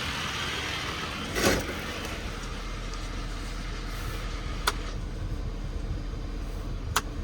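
Ford 6.7 L Power Stroke diesel idling steadily, with the PTO gear chatter typical of these trucks, a brief whoosh about a second and a half in, and a few sharp clicks near the end.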